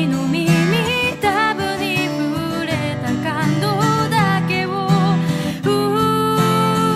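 A J-pop ballad: a melody sung with vibrato over guitar accompaniment, settling into a long held note near the end.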